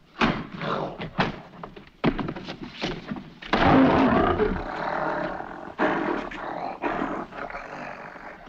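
Film gorilla roaring and growling in rough bursts, loudest a few seconds in, with a few sharp knocks between them.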